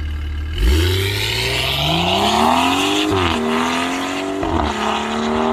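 BMW X3 M40i's B58 turbocharged 3.0-litre inline-six pulling away hard from idle, its pitch climbing steadily. The pitch drops at an upshift about three seconds in and again about a second and a half later, then climbs again each time.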